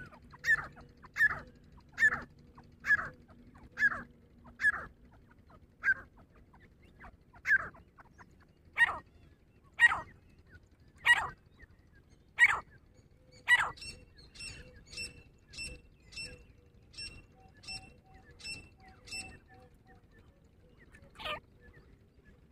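Grey francolin calling: a series of loud, short, harsh notes repeated about once a second. Midway a fainter run of about ten higher, evenly spaced notes follows, and one more loud call comes near the end.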